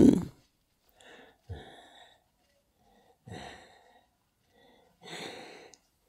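An elderly man breathing audibly between phrases: four soft, breathy inhales and sighs spread over a few seconds, with quiet gaps between them.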